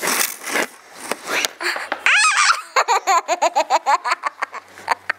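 A young child laughing close to the microphone: a high squeal that rises and falls, then a fast run of short, rhythmic laughs.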